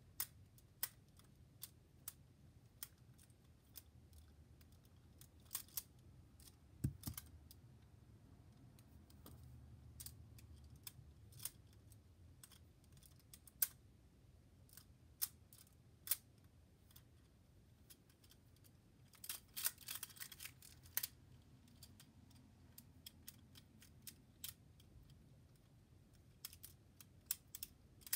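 Fidget rings clicking against each other as they are handled, spun and stacked: faint sharp clicks at irregular intervals, about one a second, with a quick flurry of clicks about two-thirds of the way through.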